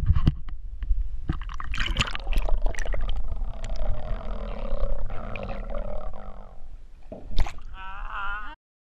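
Action camera dipped under river water: splashing, then several seconds of muffled underwater gurgling and rushing water, then a splash as it comes up. A short wavering voice follows near the end.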